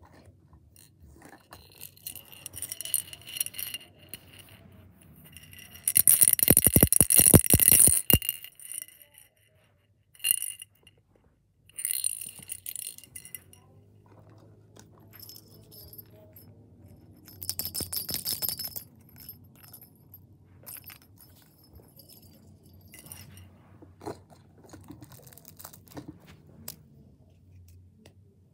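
A small jingle bell in a cat toy being shaken, jingling and rattling in several bursts, the loudest lasting about two seconds some six seconds in.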